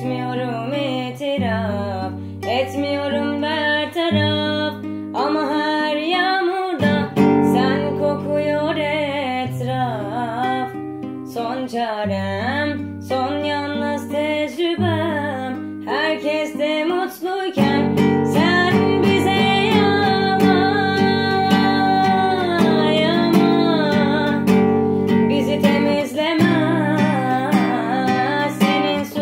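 A song: acoustic guitar strumming over held bass notes, with a singing voice wavering in pitch above it. The accompaniment grows fuller and louder about two-thirds of the way through.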